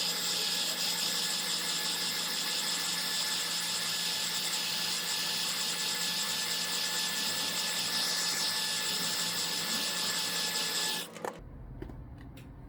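Heat gun blowing hot air steadily, a fan-driven rush with a faint steady whine, heating a phone's back glass to soften its adhesive; it is switched off and stops abruptly about 11 seconds in.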